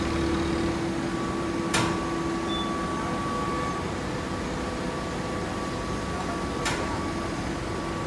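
Steady mechanical hum of a hydraulic baling press running, with two sharp clicks about five seconds apart.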